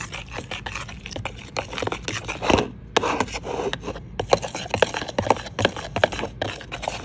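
Metal spoon scraping and clicking against a bowl as it stirs a thick mix of chocolate syrup, cocoa powder and red food dye, in quick, irregular strokes.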